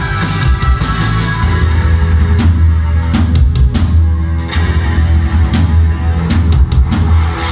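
Post-punk band playing live and loud, heard from the crowd: a heavy, steady bass line with electric guitar and drums, with clusters of sharp drum hits partway through and again near the end.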